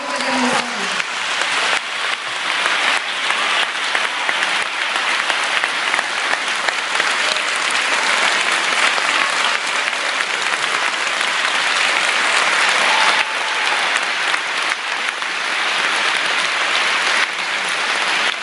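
A large audience applauding steadily, the clapping growing a little louder over the first few seconds and staying dense throughout.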